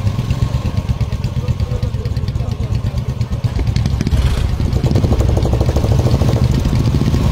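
Two motorcycle engines running together under load, pulling against a taut rope, with a rapid firing beat. About four and a half seconds in they rev up and get louder.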